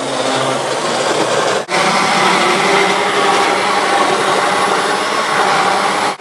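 Electric stick blender running steadily, blending a milky berry shake in a plastic beaker, with a brief break about a second and a half in.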